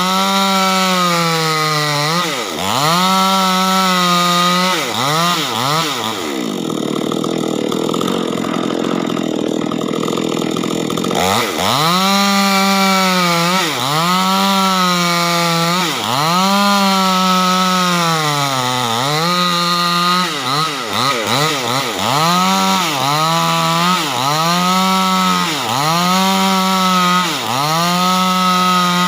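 Proquip mini chainsaw ripping a large wooden beam lengthwise, its motor pitch dipping as the chain bites into the wood and rising again, over and over about every two seconds. About a quarter of the way in, the tone turns rough and noisy for several seconds before the cutting rhythm resumes.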